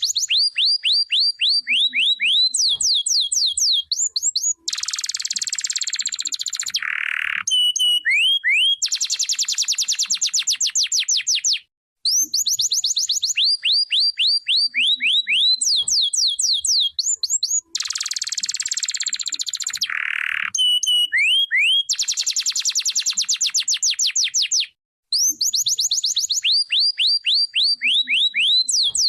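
Domestic canary singing: fast runs of repeated downward-sweeping notes alternate with dense rolled trills. The same song sequence repeats about every 12 seconds, with a brief pause near the middle and another near the end.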